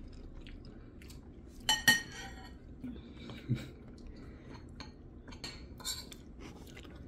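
Metal spoons clinking and scraping on ceramic plates while eating, with one loud ringing clink about two seconds in and soft chewing between the small clicks.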